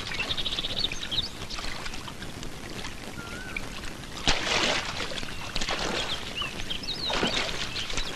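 Water splashing as a bather slaps the surface with her hands, three splashes in the second half, with birds chirping between them.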